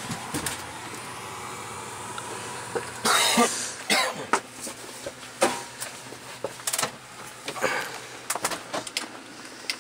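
A person coughs about three seconds in, then a string of short clicks and knocks from cockpit controls being handled.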